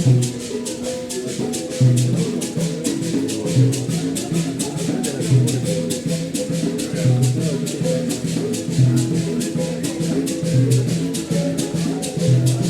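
Percussive music: a fast, even shaker rhythm over a low drum or bass note that recurs about every two seconds.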